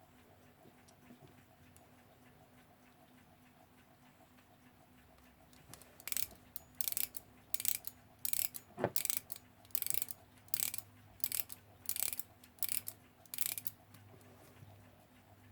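Alarm mainspring of a Weltime alarm clock movement being wound by hand, its click and ratchet clicking in about a dozen short winding strokes, evenly paced, starting about six seconds in.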